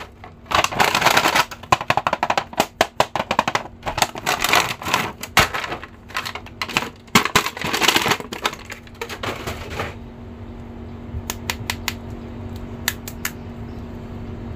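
Clear plastic packaging crinkling and crackling as an action figure is pulled out of its bag, for about ten seconds. After that, a few light clicks of the plastic figure being handled over a faint steady hum.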